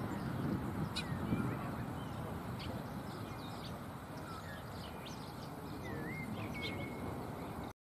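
Birds chirping and calling: short sharp chirps and a few brief whistled glides, over a steady low background rumble.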